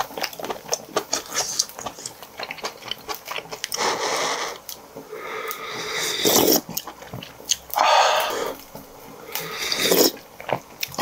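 Close-miked eating: wet chewing and mouth clicks, then about four slurps from a spoon in the second half.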